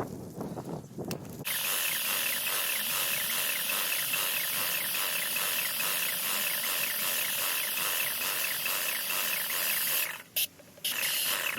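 Paint sprayer spraying: a loud steady hiss with a fast even pulse that starts abruptly, cuts off about ten seconds in, then comes back in two short bursts.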